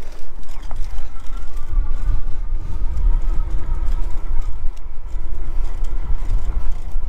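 Wind rumbling on the microphone of a moving fat-tire e-bike, with a faint steady whine from its Bafang mid-drive geared motor from about a second in until near the end.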